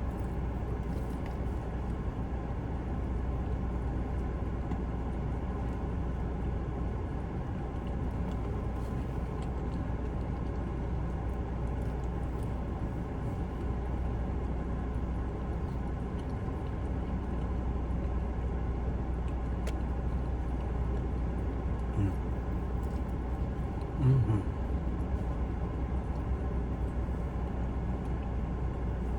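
Air conditioning running with a steady low hum. Near the end a short low voice sound, like a murmur, briefly rises above it.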